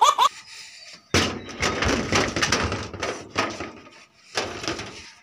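A sheet of paper being torn: a long crackly rip from about a second in, and a shorter noisy burst near the end. A baby's laugh trails off right at the start.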